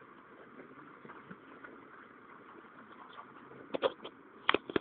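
Faint steady outdoor background noise, with a few short sharp clicks in two quick clusters near the end.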